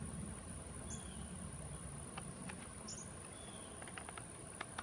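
Quiet outdoor background with a few faint high chirps, and scattered light clicks from small mosaic tiles being handled, bunched near the end.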